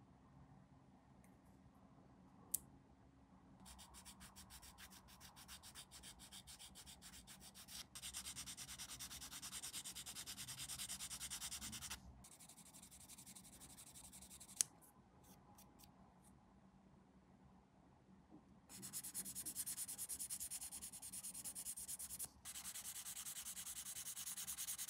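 Small plastic model-kit part being sanded by hand. Quick short strokes give way to two longer spells of steady rubbing, with a sharp click about two and a half seconds in and another near fifteen seconds.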